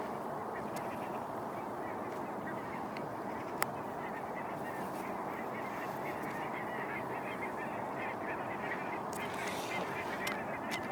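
A steady outdoor chorus of many distant birds calling, likely geese or other waterfowl, with one faint click about three and a half seconds in.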